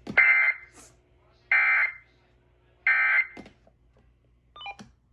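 Emergency Alert System end-of-message data tones from NOAA Weather Radio: three short, harsh digital bursts, each about a third of a second long, about a second and a half apart. They mark the end of the alert broadcast.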